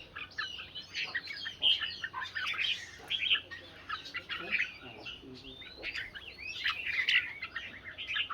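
Several red-whiskered bulbuls singing at once in a song contest, a busy, overlapping stream of short, quick chirping phrases.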